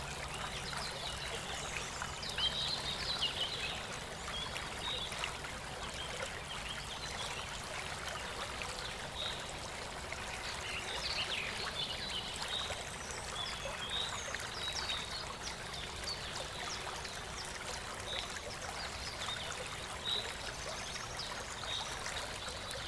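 Steady rush of running water, with short high chirps scattered through.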